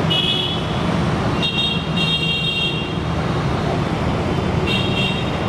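Road traffic noise with a steady rumble, and high-pitched vehicle horns tooting three times.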